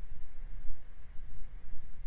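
Low, uneven cabin rumble of a small aircraft on final approach, heard through the cockpit audio feed.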